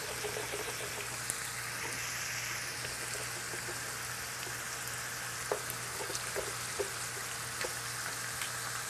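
Butter sizzling steadily in a hot skillet under shrimp and linguine, with a few faint soft ticks in the second half.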